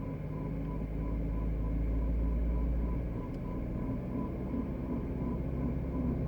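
BMW E90 320i four-cylinder petrol engine running with a steady grinding noise and a regular pulsing tone, heard with the AC off; the owner suspects worn AC compressor bearings. A deeper hum underneath drops away about three seconds in.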